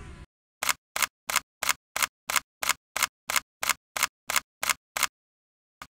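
A steady series of sharp clicks, about three a second and fourteen in all, then a short gap and one more click at the very end: a click sound effect in a video intro title sequence.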